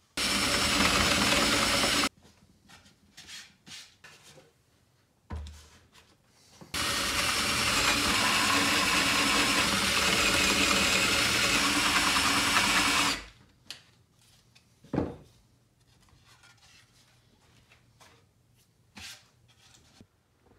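Cordless drill boring into a pine board through a clamped plywood template. It runs twice: a short burst of about two seconds, then a steady run of about six seconds. Light knocks and clicks of handling come between and after the runs.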